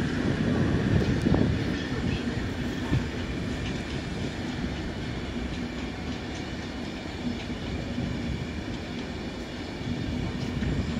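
Empty-stock passenger coaches rolling past on the rails with a steady low rumble, loudest in the first second or two.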